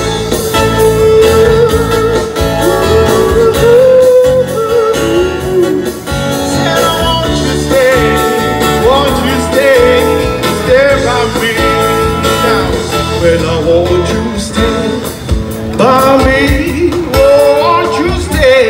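A man singing into a microphone, accompanied by acoustic guitar.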